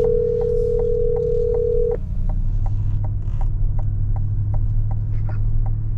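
Telephone ringback tone through a car's hands-free speakers: one steady ring about two seconds long as an outgoing call is placed. Under it runs a low road and engine hum, with the turn signal ticking about twice a second.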